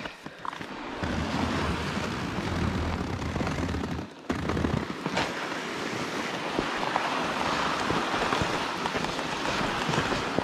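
Steady rushing noise of walking and hauling loaded toboggans along a packed snow trail, with wind on the microphone, broken briefly about four seconds in.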